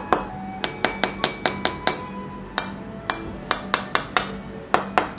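Metal fork and knife tapping the set caramelized-sugar crust of creme brulee doughnuts: a quick run of sharp clicks, about four a second, pausing briefly about two seconds in. The sugar top has hardened like candy.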